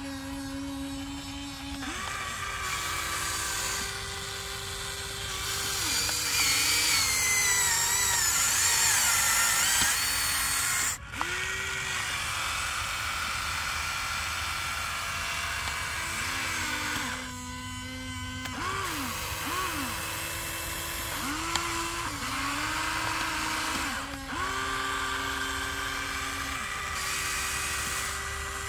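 Electric motors of a radio-controlled toy excavator whining as the boom, arm and bucket move. Each run starts and stops every few seconds, rising quickly in pitch as it starts.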